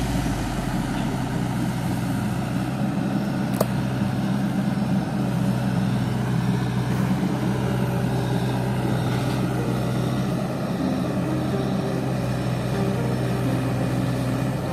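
Sunward mini excavator's diesel engine running at a steady pitch, with one sharp click about three and a half seconds in.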